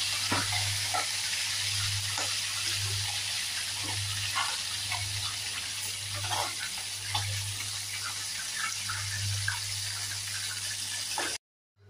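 Chicken pieces deep-frying in hot oil in a small pan: a steady sizzle with scattered crackling pops and clicks as a spatula turns the pieces, over a low pulsing hum. The sound cuts off abruptly near the end.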